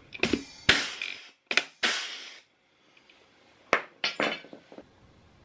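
Power rivet tool setting blind (pop) rivets to fasten the leather cover to the seat: each pull ends in a sharp snap as the rivet's mandrel breaks, with short bursts of tool noise around it. Two clusters, about three seconds apart.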